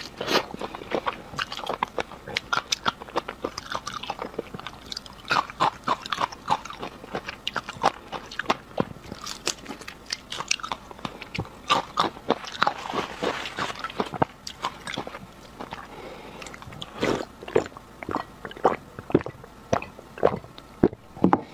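Close-miked eating sounds: a whole shrimp bitten and chewed, its shell crunching, with a continual run of sharp wet clicks and crackles from the mouth.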